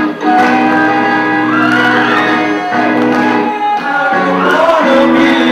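Live amateur rock band: amplified electric guitar holding chords under several male voices singing through microphones, with the ring of a large hall.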